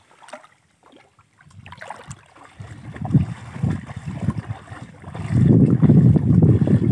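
Shallow river water sloshing around bamboo cone fish traps as they are pressed down into it and waded through. It is nearly quiet at first, then comes in low surges that are loudest in the last second and a half.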